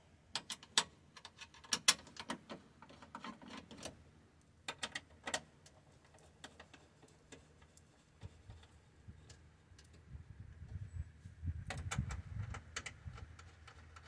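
Irregular sharp clicks and clinks of screws and a hand tool being worked as the door screws go back into a VW Mk4 GTI door, busiest in the first few seconds. Duller rubbing and handling noise follows from about eight seconds in.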